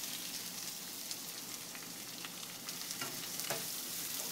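Chopped onions frying in hot butter with cumin seeds in a nonstick pan, a steady sizzle, with light stirring from a silicone spatula.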